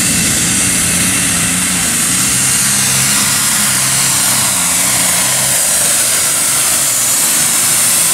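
Super stock pulling tractor, a John Deere with a turbocharged diesel engine, running flat out under load as it drags the weight sled down the track. The engine sound is steady and loud throughout.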